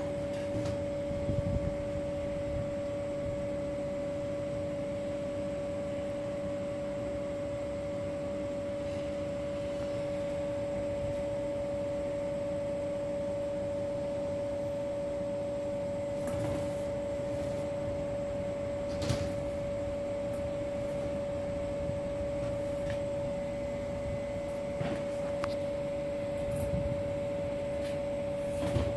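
A steady electrical or machine hum with a clear constant tone, broken by a few short, scattered knocks and clicks.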